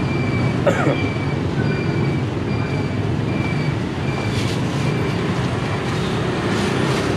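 Busy street ambience: a steady low rumble of passing traffic, with a faint high chirp repeating about twice a second.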